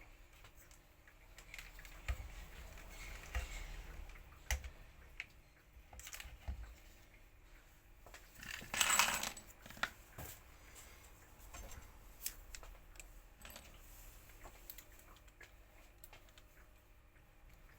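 Small metal and plastic parts of an industrial vacuum cleaner being handled during reassembly: scattered light clicks and clinks, with one louder scraping clatter lasting about a second around the middle.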